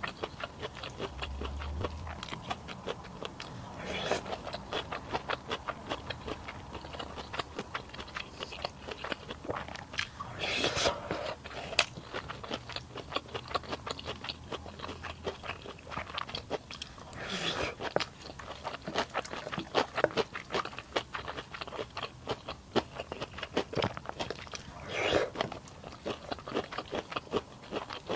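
A person chewing food close to the microphone: a rapid, continuous run of small moist clicks, with a few louder, longer eating noises about 4, 11, 17 and 25 seconds in.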